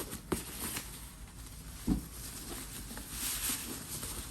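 A sealed wrapping bag being handled and pulled open: crinkling, rustling handling noise with two short sharp knocks, one just after the start and one about two seconds in.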